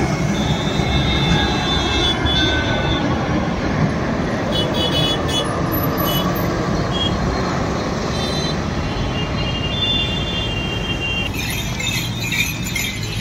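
Steady loud roar of a passenger jet passing low overhead on its landing approach, over the noise of road traffic. A few thin high tones come and go on top of it.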